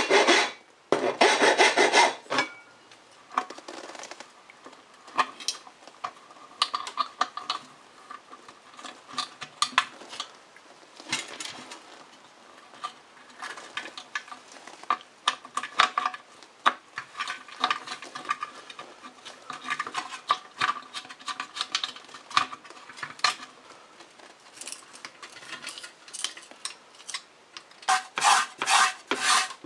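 A hand file rasping across a ridged metal sandwich-toaster plate in a few loud strokes, then scattered small metal clinks and scrapes as a wrench works the terminal nut on the toaster's pan. Near the end, quick repeated scrubbing strokes across the rusty steel pan.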